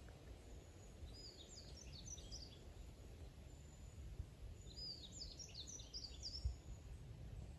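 A small bird singing two short phrases of quick, high, jumbled notes a few seconds apart, over a steady low outdoor rumble, with a single low thump near the end.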